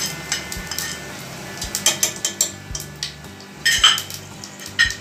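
A spatula clinks and scrapes against a plate and the rim of a nonstick cooking pot as cumin seeds are tipped in, over a light sizzle of spices frying in hot ghee and oil. The clinks come irregularly, with the loudest clatter about four seconds in.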